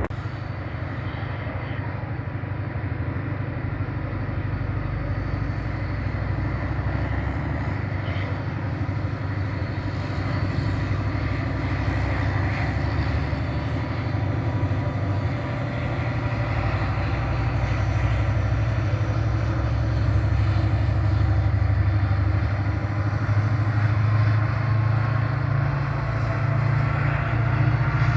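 Steady low rumble of distant road traffic, growing louder in the second half.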